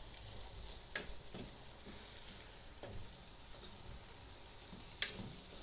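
Wooden spoon stirring an onion and pepper sauce in a pan, knocking against the pan a few times, over a faint sizzle.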